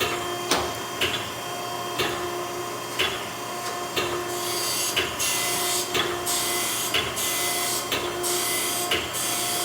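Okamoto hydraulic surface grinder running, with a steady hum and a sharp click about once a second. From about halfway, the grinding wheel hisses against the workpiece in short repeated passes, cutting dry without coolant.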